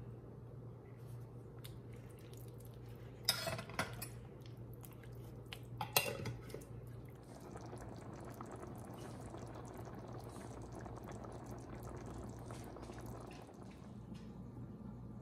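Spoon and spatula clicking against an enamelled cast-iron pan a few times as a tomato-vegetable sauce is stirred, then the sauce bubbling at a simmer, a fine continuous crackle. A steady low hum runs underneath.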